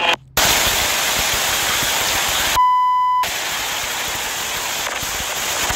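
Storm wind rushing over a phone's microphone as a steady, loud hiss, broken once by a short, steady electronic beep with the wind cut out.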